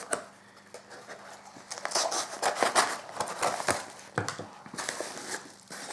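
Plastic parcel packaging being opened by hand: irregular crinkling, rustling and sharp crackles.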